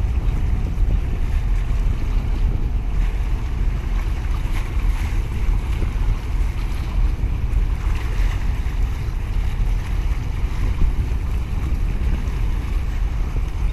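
Wind buffeting the microphone in a steady low rumble, over choppy sea water washing and lapping.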